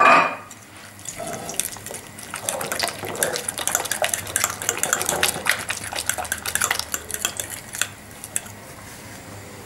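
Metal spoon stirring beaten eggs and fried courgette slices in a ceramic bowl: quick clinks and scrapes against the bowl with wet sloshing, easing off near the end.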